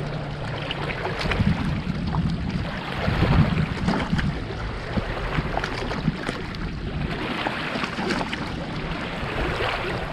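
Water lapping and sloshing against a kayak hull, with light clicks and knocks throughout and some wind on the microphone.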